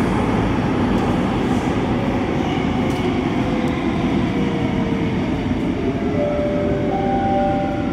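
Singapore Downtown Line MRT train running through a tunnel with a steady rumble, slowing as it enters a station, with a faint electric whine that falls gently in pitch.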